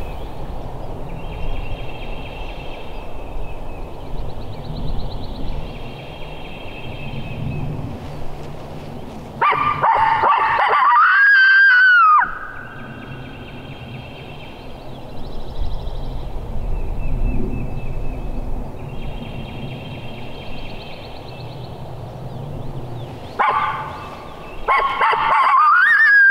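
A coyote howler locator call blown twice, about ten seconds in and again near the end: each a loud, wavering howl that rises, holds and then falls away, sounded to make a gobbling turkey answer. Between the howls, faint repeated trilling and a steady low wind rumble.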